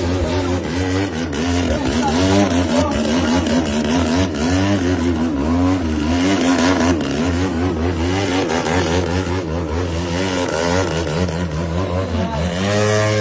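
Aerobatic plane's piston engine and propeller running hard, its note swinging up and down repeatedly through the maneuvers.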